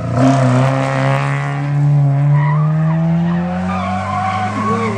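Rally cars sliding through a tarmac bend: engines held at high revs with a steady note that sags slightly, and tyres squealing in wavering tones partway through and near the end.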